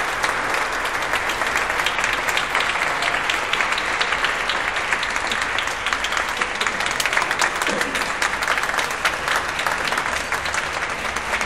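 Audience applauding, dense steady clapping with some voices mixed in.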